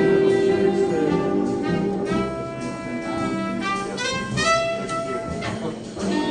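Recorded jazz with horns playing through a pair of Leonardo Mark 8 planar magnetic speakers driven by a Tube Guru 6C33C single-ended tube amplifier at 14 watts per channel, a run of held notes changing every second or so.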